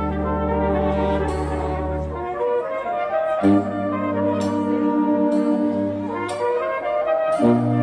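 Serbian brass band playing live: trumpets and horns hold long chords over a tuba bass, with a few drum strikes.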